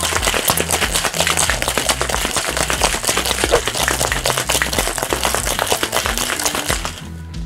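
Stainless-steel cobbler shaker shaken hard with ice cubes and liquid: a dense, fast rattle of ice against metal that stops near the end.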